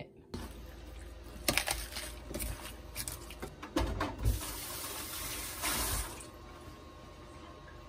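Water running from a tap into a sink, with several sharp knocks and clatters in the first few seconds. The flow grows louder, then stops about six seconds in.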